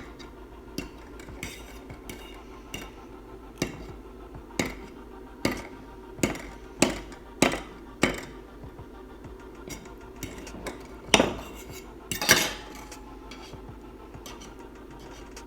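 Cutlery clinking and tapping against a dish while eating a fried egg: irregular sharp clinks, one every second or so, with two louder knocks near the end.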